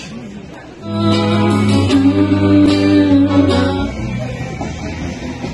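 Live guitar music: strummed chords over a low bass note, starting about a second in and dropping to a lower level near four seconds.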